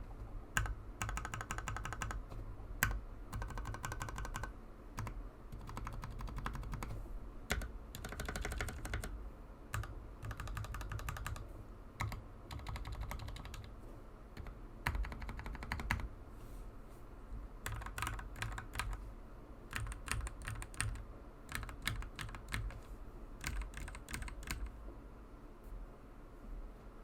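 Typing on an RK68 mechanical keyboard with Gateron Yellow Pro linear switches: bursts of quick keystrokes separated by short pauses, thinning out near the end.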